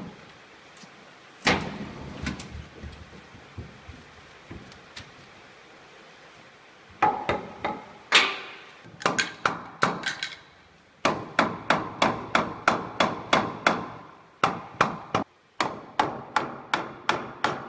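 Hammer tapping teak door-frame pieces into place: a couple of single knocks, then runs of quick, even blows, about two to three a second, broken by short pauses.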